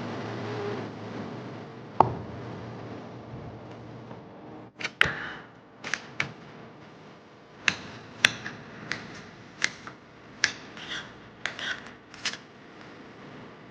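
A series of sharp clicks and knocks, about a dozen, spread over several seconds, like objects being handled or set down.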